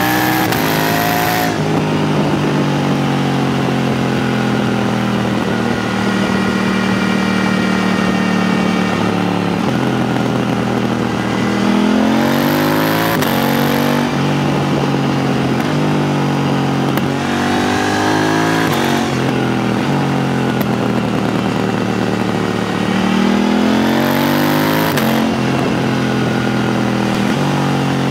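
KTM 890 Duke R's parallel-twin engine running through an HP Corse Evoxtreme 310 exhaust with its dB killer fitted, under way on the road. The revs drop at the start, hold fairly steady, then rise three times as the bike accelerates.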